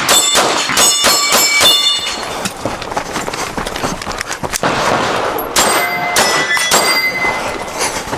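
Pistol fire in rapid strings at steel targets, the steel plates ringing as they are hit: a fast burst in the first two seconds, a few lone shots, then another quick string from about five and a half seconds in.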